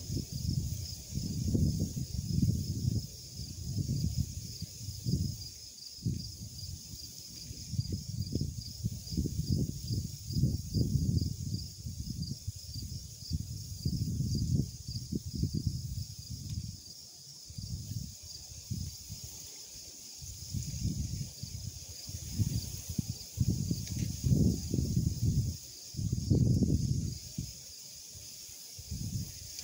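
Wind buffeting the microphone in uneven gusts, a low rumble that comes and goes every second or two. Behind it, insects keep up a steady, rapidly pulsing high trill.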